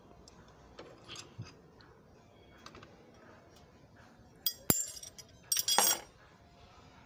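Steel wrenches clinking against metal in an engine bay: a few light ticks, then a sharp ringing clink at about four and a half seconds, and a short rattle of clinks about a second later.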